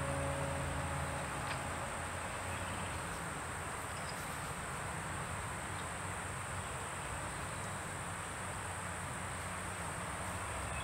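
Insects droning steadily in one continuous high-pitched tone over a soft even hiss of outdoor background noise.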